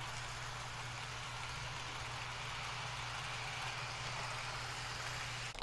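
HO scale model trains running around their track loops: a steady whir of small electric motors and wheels on rail, with a low steady hum underneath.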